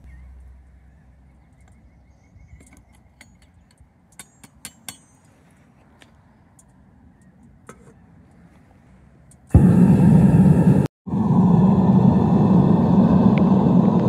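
A few light metallic clinks, then about nine and a half seconds in the gas burner of a metal-melting furnace starts up, loud and steady. It breaks off for a moment and runs on.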